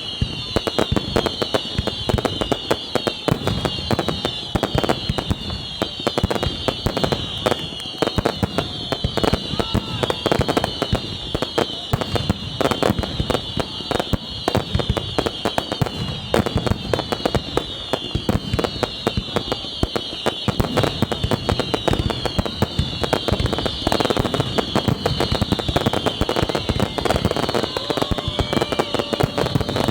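Dense fireworks barrage: rapid, continuous bangs and crackles with no let-up, and a steady layer of high, falling whistles over them.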